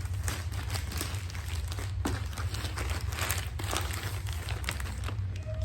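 Package being opened by hand: irregular rustling and crinkling of the packaging, over a steady low hum.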